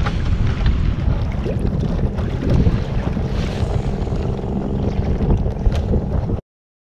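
Strong wind buffeting the microphone in gusts, over choppy water lapping around a kayak. It cuts off abruptly near the end.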